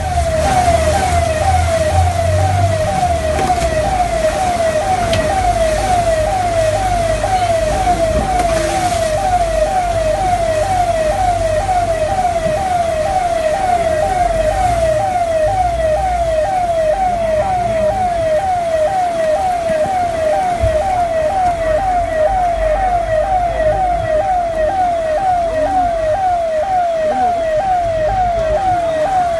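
Electronic siren sounding a fast repeating wail, each note falling in pitch and then jumping back up, about two sweeps a second at an even level. A low rumble sits under it in the first few seconds.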